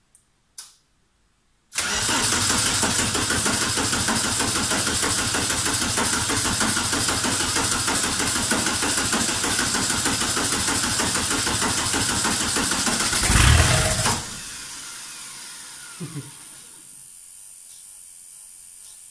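A VW T25's transplanted TDI diesel engine cranking on its starter for about twelve seconds, with a petrol-soaked rag as a starting aid. It surges louder for a moment near the end as it half-catches, then cuts off to a faint hum. The owner puts its failure to run down to the ECU not powering the fuel solenoid.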